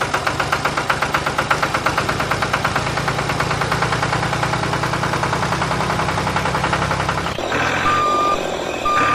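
A tractor engine chugging evenly at about five beats a second; near the end the chugging changes and two short high beeps sound, like a reversing alarm.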